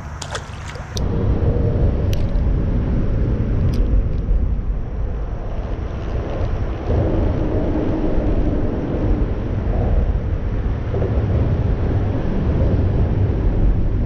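Steady low rumbling noise, strongest in the bass, setting in about a second in, with a few light clicks in the first four seconds.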